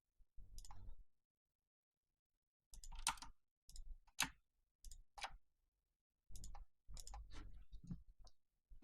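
Faint clicking of a computer mouse in scattered groups: a few clicks about half a second in, then repeated runs of clicks from about three seconds in almost to the end.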